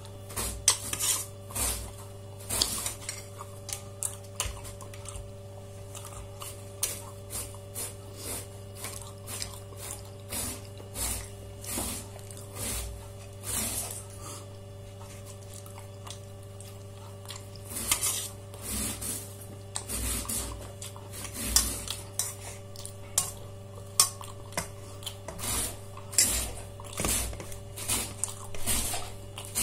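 Cutlery clinking and scraping against dishes in short, irregular strokes, over a steady low hum.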